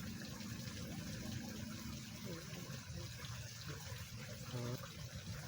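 Small stream flowing steadily, a low even rush of water.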